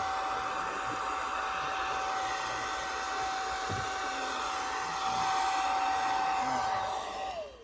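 Hand-held hair dryer running steadily with a high whine. It is switched off near the end, and its pitch falls as the motor spins down.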